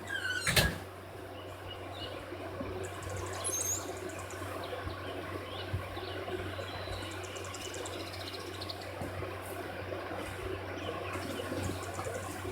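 Outdoor background with faint bird chirps scattered through it over a steady low hum, and a single sharp knock about half a second in.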